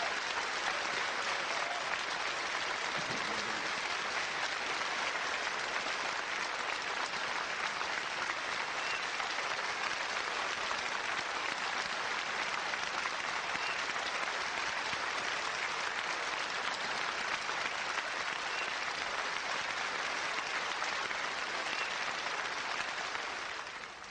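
Studio audience applauding, a steady, dense clapping that fades out at the very end.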